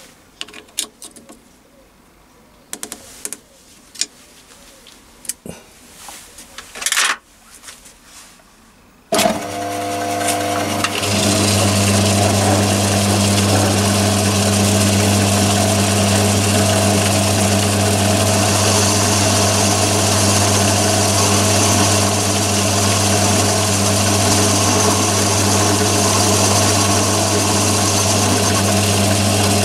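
A few light metal clicks as a hex key sets an insert boring bar in a boring head. About nine seconds in, the Myford ML7 lathe's electric motor switches on, runs up over a couple of seconds and then runs steadily at 500 rpm with a strong low hum, spinning the boring head; a higher hiss joins it for several seconds in the middle.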